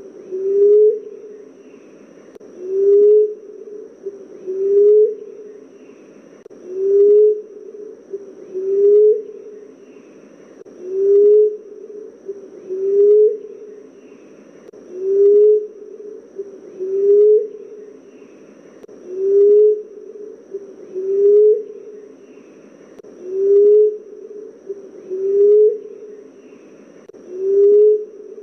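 Common emerald dove calling: a low coo repeated about every two seconds at an even pace, each note short and rising slightly at its end.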